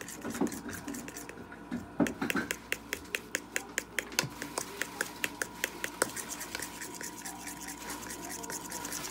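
Metal spoon stirring thick pancake batter in a bowl, clicking against the side in a quick rhythm of about four strokes a second, then going on as softer, uneven scraping after about six seconds.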